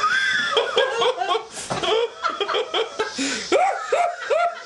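A man laughing out loud in a string of short, repeated bursts that quicken near the end.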